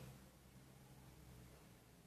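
Near silence: a faint, steady low hum with no other events.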